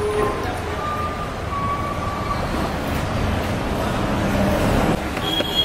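Steady city street traffic rumble, with a few short high tones, beeps or horns, heard briefly through it.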